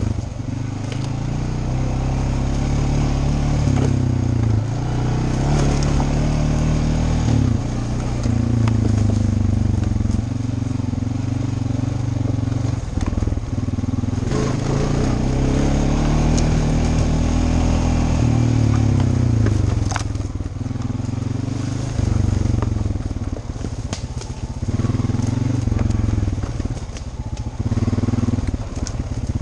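ATV engine running under way, its note rising and falling as the throttle is worked, with scattered clicks and knocks from the trail under the wheels.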